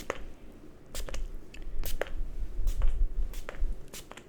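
Close-miked ASMR handling sounds: irregular soft crackles and clicks over a low rumble, from something rubbing or brushing right at the microphone.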